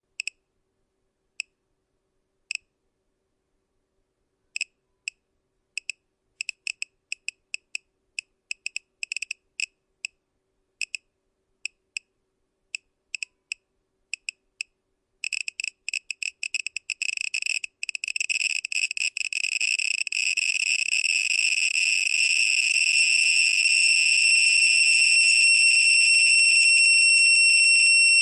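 Geiger counter clicking: sparse single clicks at first, coming faster and faster until they blur into a rapid crackle and then a continuous high-pitched tone, as a rising radiation level drives the count rate to saturation.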